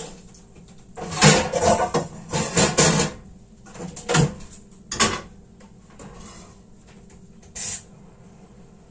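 Kitchenware being handled at a gas stove: a couple of seconds of scraping and clattering, then two sharp knocks, and a brief scrape near the end.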